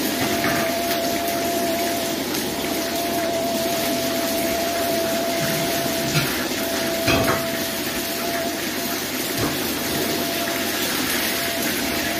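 Steady airliner cabin noise: an even rushing hiss with a faint steady hum, and a single brief knock about seven seconds in.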